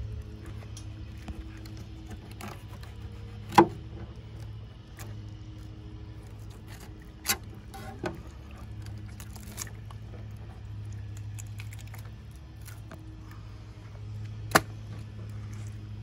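Fillet knife cutting through a flounder on a plastic cutting board, with small scraping clicks and a few sharp knocks, the loudest about three and a half seconds in and near the end, over a steady low hum.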